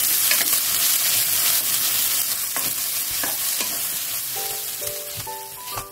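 Potato wedges and sausages sizzling in oil in a frying pan while being stirred, with a few scraping strokes against the pan. The sizzle slowly fades, and a few notes of music step upward over the last second and a half.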